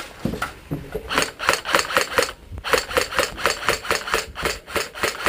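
Running footsteps with carried kit rattling at each stride, about four strides a second, with a brief break partway through.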